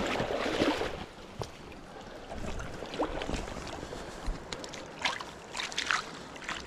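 Water splashing around a wader's legs in a shallow trout stream, loudest in the first second, then the stream's steady rush with scattered small knocks and clicks.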